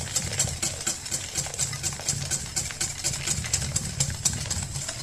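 Wire whisk beating fast against a stainless steel mixing bowl: a rapid, even run of metallic clicks as hot milk is poured into beaten eggs and sugar for a crème caramel custard.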